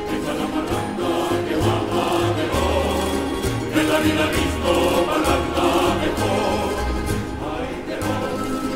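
Music: a song with a choir and instrumental accompaniment.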